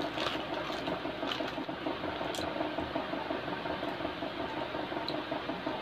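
Clear plastic bag crinkling and rustling as hands unwrap a nebulizer mask and its tubing, with a few small crackles over a steady hiss.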